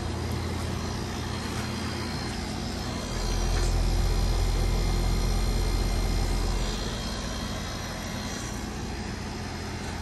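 Goodman outdoor heat-pump/air-conditioner unit running, a steady hum of the condenser fan and compressor. The low hum grows deeper and louder from about three to seven seconds in, then settles back.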